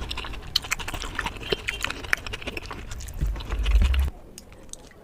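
Close-miked eating sounds: many quick irregular clicks and smacks of chewing, which cut off abruptly about four seconds in.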